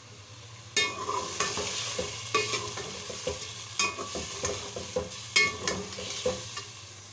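Slotted steel spoon stirring chicken, onions and garlic frying in a steel pot, scraping and clinking against the pot's sides with short ringing clinks, over a steady sizzle. The stirring starts about a second in.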